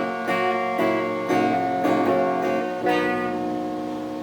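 Acoustic guitar strummed through the song's closing bars, ending on a final chord left ringing from about three seconds in.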